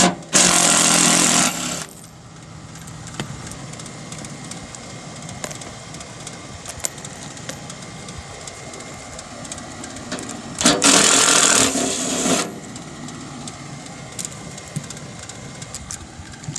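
A handheld power driver runs in two short bursts of under two seconds each, one about a second in and one near the end, driving fasteners while a replacement blower motor is fitted into its mount. Between the bursts come small metallic clicks and handling knocks.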